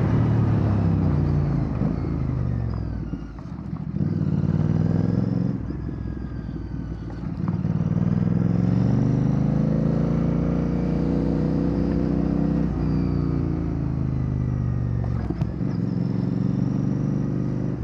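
Royal Enfield Bear 650's 648 cc parallel-twin engine breathing through a Red Rooster Performance aftermarket exhaust while the bike is ridden. The note climbs in pitch under throttle and drops back several times as the rider shifts or eases off, with a quieter, lower stretch a few seconds in.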